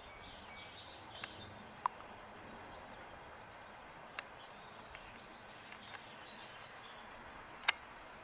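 Faint outdoor ambience with small birds chirping softly now and then, and three short sharp clicks, the loudest near the end.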